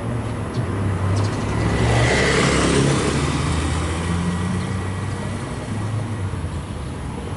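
A diesel-hauled train passing through the station: the locomotive's engine running with a low drone, and wheel and rail noise swelling to its loudest about two to three seconds in before easing off, with a brief high squeal near the peak.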